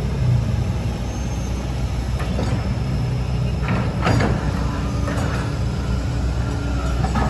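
Kobelco hydraulic excavator's diesel engine running steadily, with several short, sharp squeaks or clanks from the working machine.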